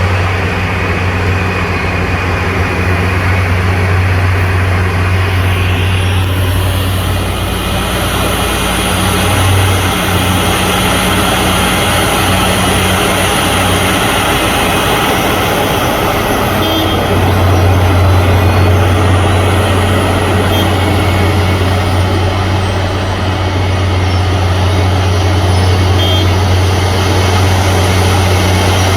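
Heavy engine running steadily, a deep hum under a constant noisy wash, growing louder a little past halfway.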